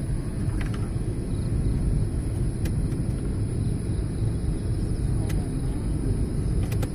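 Inside a moving car's cabin: steady low rumble of the engine and tyres on the road, with a few faint clicks.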